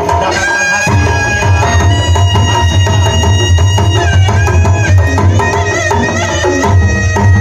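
A live Sundanese kendang pencak ensemble accompanying pencak silat: hand drums beat a dense, driving rhythm under a reedy tarompet (shawm) melody of long, bending held notes.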